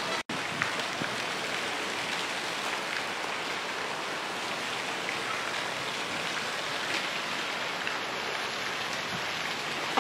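Steady splashing of a garden fountain's jet falling into its pool, an even rush of water that drops out for an instant just after the start.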